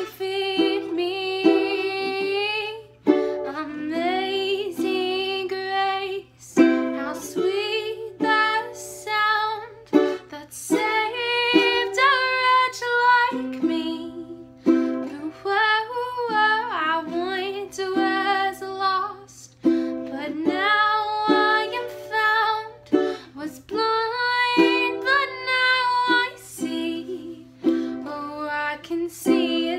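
Ukulele strummed to accompany a slow song, with a woman's sustained singing voice over it.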